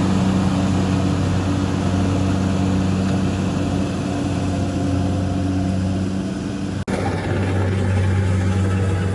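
Kubota DC60 combine harvester's diesel engine running steadily with a low, even drone. The sound drops out for an instant about seven seconds in, then the same drone carries on.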